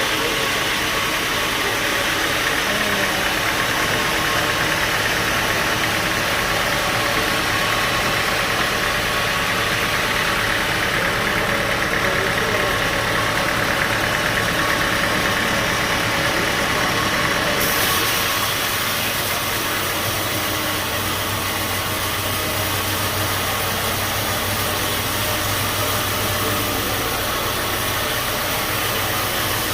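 Bandsaw sawmill running steadily: a continuous machine drone with a hissing upper edge. About two-thirds of the way through, the hiss drops suddenly and the machine carries on as a duller, lower drone.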